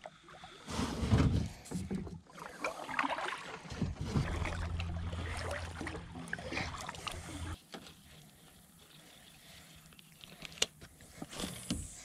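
Kayak paddling: paddle blades dipping and splashing in the water, with a steady low rumble for a few seconds in the middle, then a quieter stretch and a few sharp clicks near the end.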